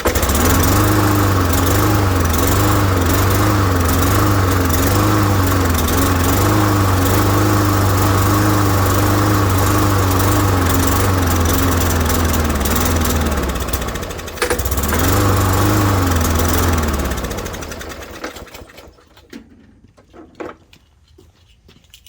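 Briggs & Stratton E450 push-mower engine running on starting fluid sprayed into the carburetor intake, its speed wavering slightly. About two-thirds of the way in it falters, picks up again, then dies away, the sign of an engine with spark, compression and air but no fuel of its own, which the owner puts down to a clogged carburetor jet.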